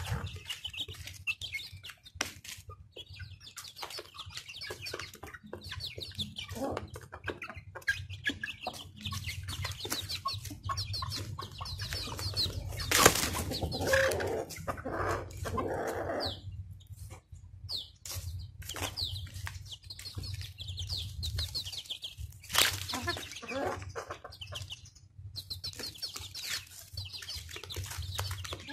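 Chickens feeding: many quick beak taps pecking feed off cardboard, with clucking and high chirps throughout. Two louder sharp sounds stand out, about 13 and 22 seconds in.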